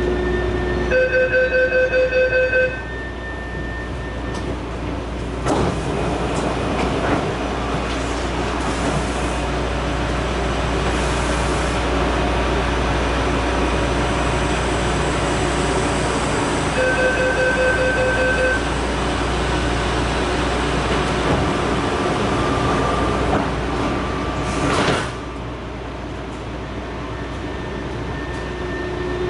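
Taipei Metro Matra (VAL 256) rubber-tyred train running, with steady whining tones over a constant rumble from its variable-frequency traction drive, making an abnormal noise. A quick run of rapid beeps sounds about a second in and again past the middle. Near the end a sharp rising sweep is followed by a drop in loudness.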